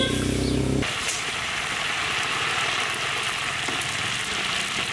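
Whole marinated chickens deep-frying in hot oil in a large iron kadai: a steady, even sizzle. For about the first second a low humming drone is heard, then it cuts off and the sizzle takes over.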